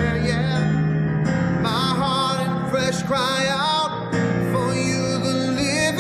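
A man singing a contemporary worship song in phrases, with vibrato on held notes, accompanying himself on an electric keyboard.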